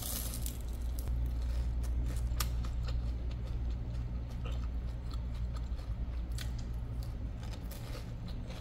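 A person biting into and chewing a crispy fried taro egg roll (chả giò khoai môn), with irregular crunches over a steady low hum.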